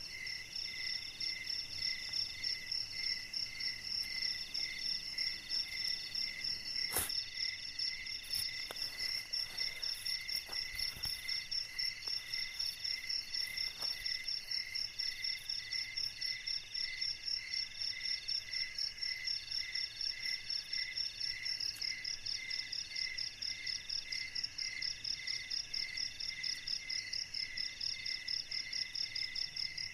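Night insect chorus, several insects calling at once in overlapping pulsing trills at different pitches, some high and some lower, running steadily. A sharp click cuts in about seven seconds in, with a few fainter clicks after it.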